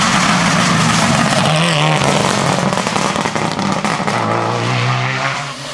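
Subaru Impreza WRX STI rally car's turbocharged flat-four engine running hard through a tight tarmac corner. The engine note drops about two seconds in, then rises again from about four seconds in as the car accelerates out of the bend.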